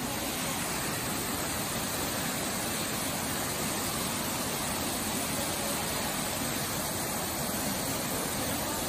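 Steady rush of water from the main falls at Bushkill Falls, white water cascading over rock ledges.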